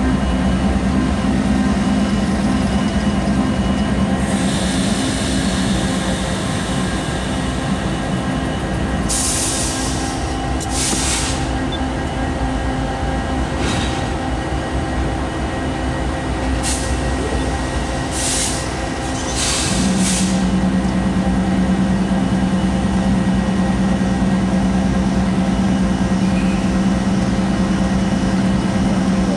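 Norfolk Southern diesel locomotive moving slowly, its engine a steady low hum. Several short, sharp hisses come through the middle, and the engine hum swells again after about twenty seconds.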